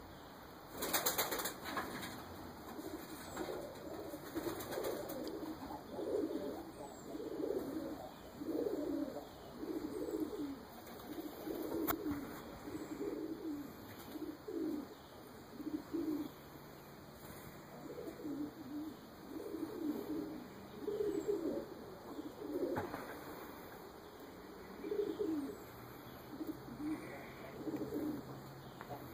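Domestic pigeons cooing over and over in low, repeated calls, with a short flurry of wing flaps about a second in.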